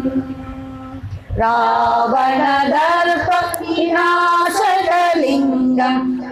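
Three women singing a Sanskrit devotional hymn to Shiva in unison. A held note dies away, then about a second and a half in they start the next line.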